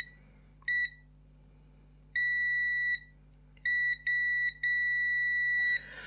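AstroAI digital multimeter's continuity buzzer beeping at one steady high pitch as the probes touch the hair dryer switch's terminals: five beeps of uneven length, two of them long, each a closed circuit through the switch, which is working. A short rustle of handling comes at the very end.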